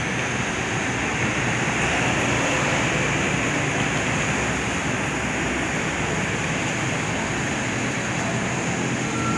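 Electric pet hair clippers running continuously as they cut a toy poodle's coat: a steady, even whirring buzz with no breaks.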